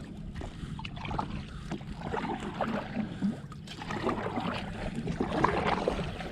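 Kayak paddle strokes: the blades dipping into the water with small, irregular splashes and drips as the kayak moves across the water, over a low steady rumble.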